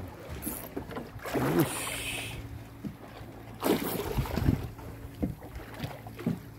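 Fishing boat's engine running with a steady low hum, with two brief rushes of noise over it, about a second in and again nearly four seconds in.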